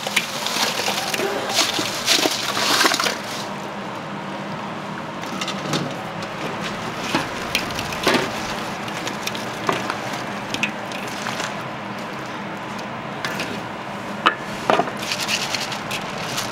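Fried chicken tipped from a steel bowl into a large steel mixing bowl of sticky sauce and tossed with a plastic plate and spoon: clattering, scraping and knocking against the metal bowl, busiest in the first three seconds, then scattered knocks.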